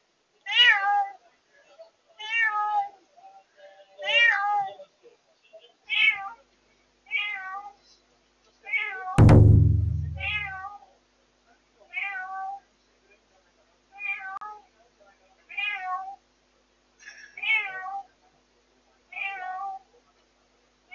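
White cat, a newly rescued former stray, meowing over and over in its cage, about one call every one and a half to two seconds, each rising then falling in pitch: crying instead of eating. A single loud thump about nine seconds in.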